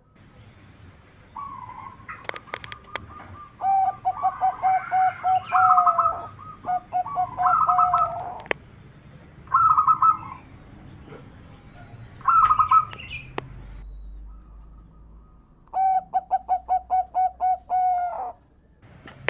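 Zebra dove (perkutut) cooing: about six phrases of rapid, repeated pulsing notes, a high note then a run of lower rolling coos, with short pauses between phrases. A few sharp clicks sound between phrases.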